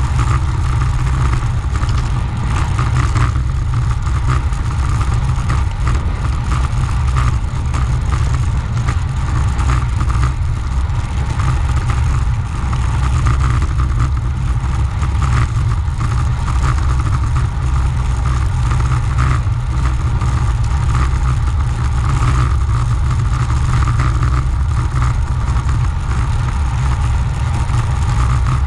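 Wind rushing over the microphone of a camera on a moving bicycle at speed: a loud, steady rumble, with a constant higher hum from the ride over it.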